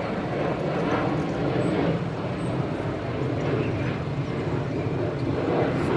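Aeroplane engine drone from an approaching aircraft, a steady low hum with a rushing noise over it.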